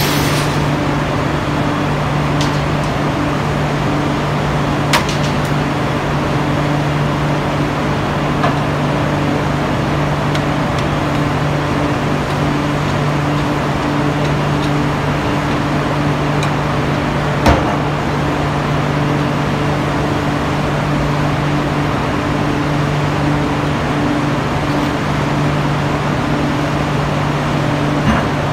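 Steady, loud steel-mill machinery hum with a low drone and a second tone above it that pulses on and off. A few short, sharp knocks break through, the loudest about halfway through.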